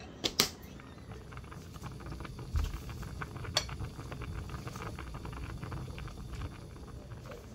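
Water boiling hard in a stainless pot of somyeon noodles: a dense, steady bubbling with scattered small pops. Two light knocks come just before the bubbling sets in.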